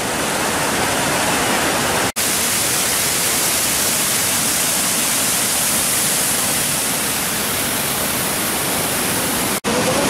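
Waterfall of karst spring water pouring and splashing over rock: a steady, loud rush of water. The sound cuts out for an instant about two seconds in and again near the end.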